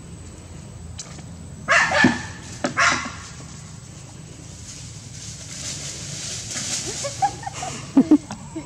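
Small spitz-type dog barking: two harsh bursts about two seconds in, then two quick sharp barks near the end.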